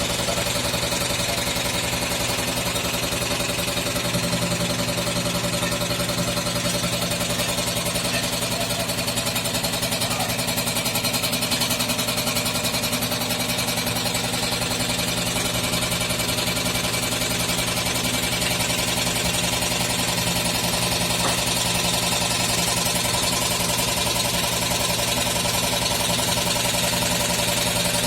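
Front-loading washing machine on its spin cycle, the motor and drum running with a steady hum and a fast, even knocking from inside the drum. The owner traced the knock to a broken drum spider (cross-piece), not to the bearings or shock absorbers.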